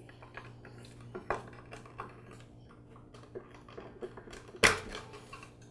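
Plastic cover of an air compressor's pressure switch being worked loose and lifted off by hand: scattered small clicks and scrapes of plastic, with one louder click about four and a half seconds in.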